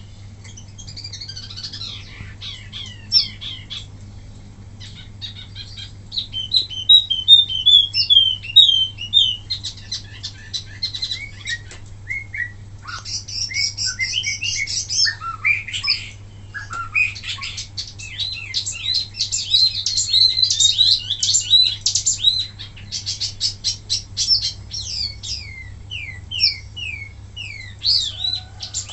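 Wambi mini songbird singing in fast volleys of high chirps and short down-slurred whistled notes, the rapid 'tembakan' song used as a tutor recording. A steady low hum runs underneath.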